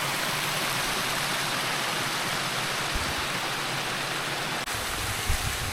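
Steady rush of a stream's flowing water, an even hiss that does not change.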